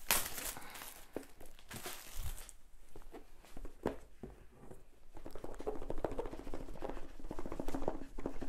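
Packaging being handled: a sharp tear and crinkle of plastic wrap at the start, then irregular rustling and scraping of the cardboard box and its lid being worked loose, with a few light taps.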